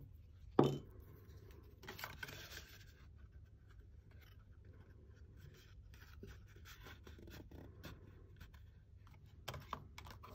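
Cardstock being handled and pressed together: soft paper rustling and scattered small ticks, with one sharp tap about half a second in.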